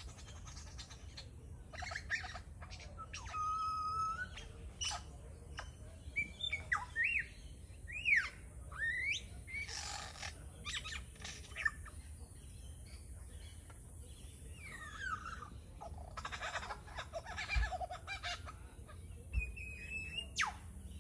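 Lyrebird singing its mimicry song, a varied run of calls copied from other birds: clear whistles, quick rising sweeps and buzzy, rattling phrases, switching every second or two, with a held whistle a few seconds in and another near the end.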